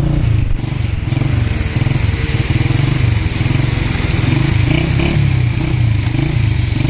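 Motorcycle engine running at low speed with a pulsing rumble, under a constant rushing noise.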